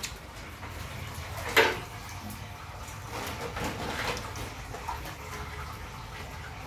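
Water sloshing and splashing in a boat's seawater lobster tank as gloved hands work in it, with a sharp knock about one and a half seconds in, over a steady low hum.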